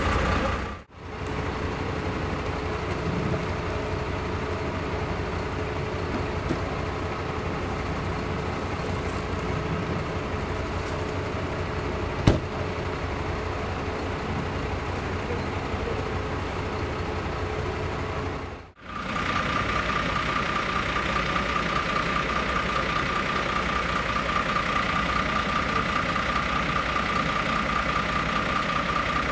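Fire engines' diesel engines idling steadily, a low rumble with a faint steady tone. Later on a steady high-pitched hum runs over it. There is one sharp click about twelve seconds in, and the sound drops out briefly twice.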